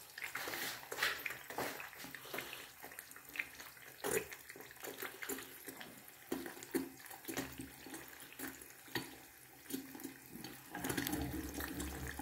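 Eggs frying in oil in a pan on medium heat: a steady hiss of sizzling with frequent small crackles and pops.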